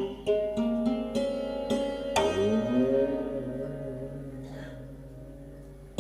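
Instrumental music on a plucked string instrument: a quick run of plucked notes, then a note bent in pitch that rings on and slowly fades.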